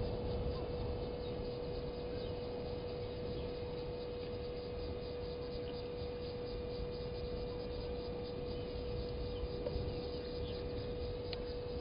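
Outdoor background sound from a waterhole camera's microphone: a steady, even hum over a low background rumble, with faint high ticking.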